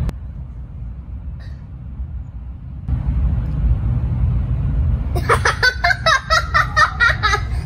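A low steady rumble, then about five seconds in a person laughing in a quick run of 'ha-ha-ha' for about two seconds.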